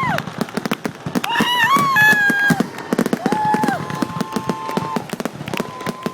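Fireworks going off in quick succession: many sharp bangs and crackles. Several long, level high tones, each held about a second and gliding down at the end, sound over the bangs.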